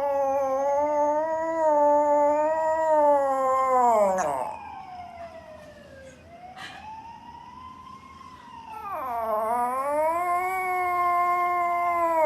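Dog howling: two long, wavering howls, the second starting a little before the last third, with a fainter tone rising and falling in the pause between them.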